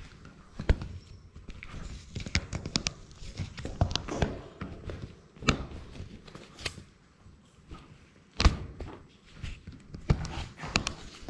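A six-week-old Labrador Retriever puppy nosing and mouthing a GoPro camera right at the microphone. It makes irregular knocks, clicks and scrapes on the housing, several of them sharp and loud.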